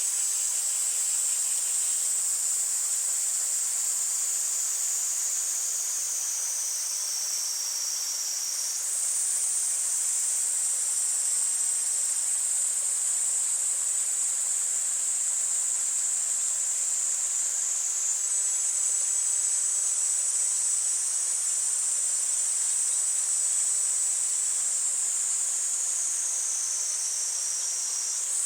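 A chorus of cicadas shrilling continuously and high-pitched over the steady rush of a mountain stream. The cicada pitch sags lower twice, once about a third of the way in and again near the end, then snaps back up each time.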